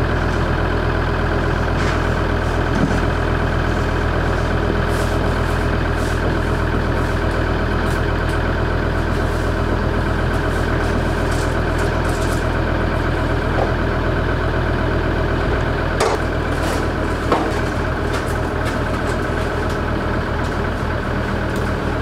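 Land Rover Defender Td5 five-cylinder turbodiesel idling steadily, with a couple of small clicks about three-quarters of the way through.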